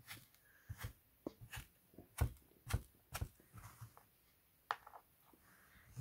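A stick poking into purple moulding sand on a plastic tray, making a string of short, irregular taps and soft crunches, about a dozen in all.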